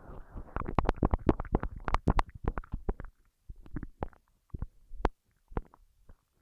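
Mouth pressed right against a microphone, biting and mouthing at it: a dense run of wet clicks, smacks and low thumps that thins out to a few scattered pops after about three seconds.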